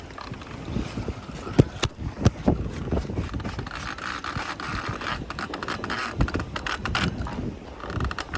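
Fishing reel being cranked in with a whirring, scraping sound over wind buffeting the microphone, with scattered knocks from handling the rod.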